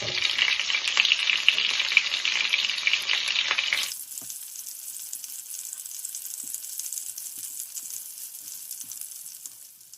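Breaded chicken nuggets frying in hot oil in a frying pan: a dense crackling sizzle. About four seconds in it drops suddenly to a quieter, thinner sizzle that fades out near the end.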